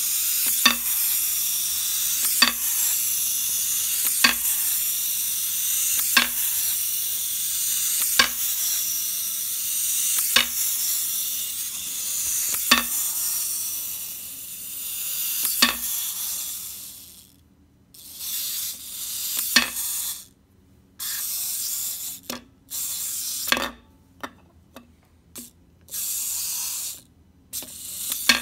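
Clockwork spring motor of a plastic wind-up flipping monkey toy whirring, with a sharp clack each time the monkey flips and lands on the glass tabletop, at first about every two seconds and then further apart. Later the whirring breaks into short stop-start spurts with a few more clacks as the spring runs down.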